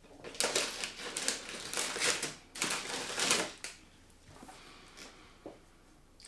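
Tissue paper and packaging crinkling and rustling for about three seconds as a small carton is pulled out of a box, followed by a few faint ticks as the carton is handled.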